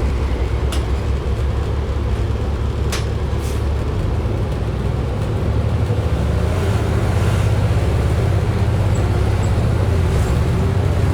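Cabin of a moving 2010 Orion VII NG transit bus: a steady low rumble from the drivetrain and road, with the bus's body rattling. It has a couple of sharp clicks about three seconds in and grows a little louder about six seconds in.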